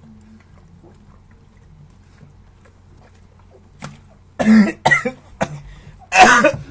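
A person coughing hard several times in quick bursts, starting after a few seconds of quiet room hum.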